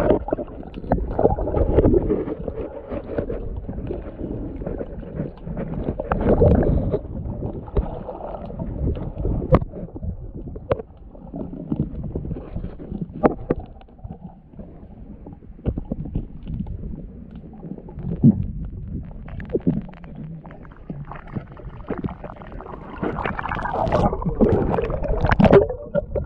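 Muffled water sloshing and gurgling heard through a submerged camera, with scattered knocks and uneven surges. It grows louder and splashier near the end as the camera comes up to the surface.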